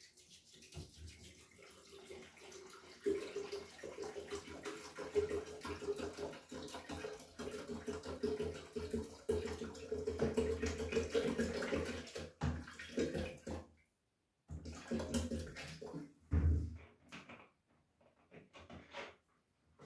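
Water poured from a bottle into an electric kettle: a steady splashing stream that stops about fourteen seconds in, followed by a few shorter bursts.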